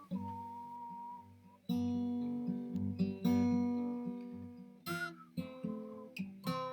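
Background music: an acoustic guitar strumming chords, each chord left to ring and fade.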